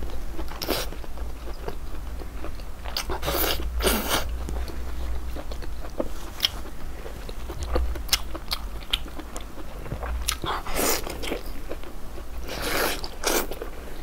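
Close-miked mouth sounds of a person biting into and chewing braised pork: moist bites and chewing noises coming at irregular intervals.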